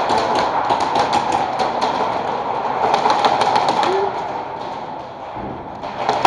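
Airsoft guns firing in rapid strings, many sharp clicking pops a second among plywood walls, easing off about five seconds in and picking up again near the end.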